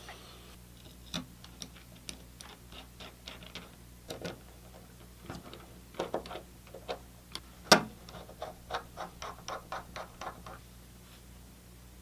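Small clicks and taps of plastic and metal parts being handled, fitted and screwed together as a mini PC stick is reassembled with a small screwdriver, with one sharper knock nearly eight seconds in and a quicker run of clicks after it.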